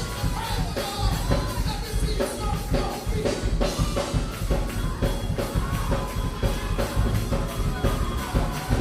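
Music with singing over a drum kit keeping a steady beat.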